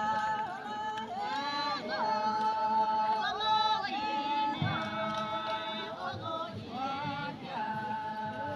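A group of women singing a traditional folk song together without instruments, holding long notes and sliding up and down between them, with short breaks between phrases.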